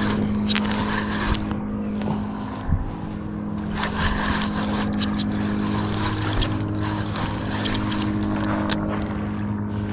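Spinning fishing reel cranked steadily to bring in a hooked fish, with light clicks from the handle and gears over a steady low hum.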